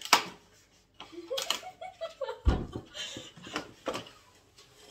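A cardboard advent calendar door being opened and a Pringles chip can handled: a sharp click near the start, then a dull thump about halfway through and a few light knocks.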